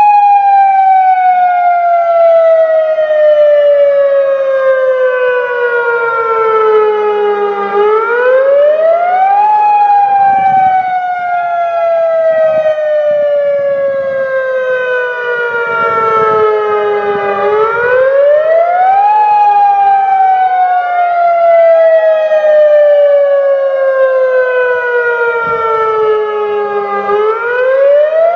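A pair of 2008 Federal Signal Modulator electronic outdoor warning sirens sounding the Attack signal, loud and echoing. Several tones sounding together jump up quickly, then slide slowly down, over and over about every nine and a half seconds.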